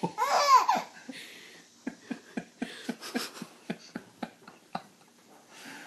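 Baby laughing: a loud, pitched squeal of laughter at the start, then a run of short, quieter breathy laugh pulses, a few a second, that stop about a second before the end.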